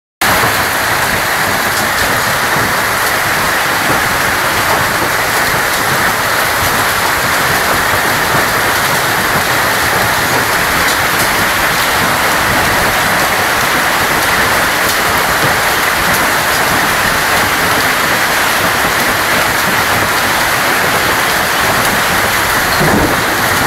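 Hailstorm: hail and rain pelting down steadily, a dense hiss with scattered sharper ticks of stones striking.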